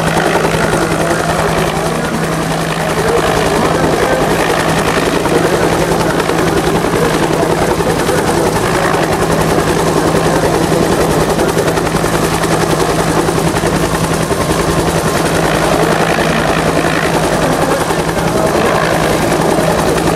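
UH-1 Huey helicopter hovering close by, its two-bladed main rotor chopping steadily over a constant low hum of the engine.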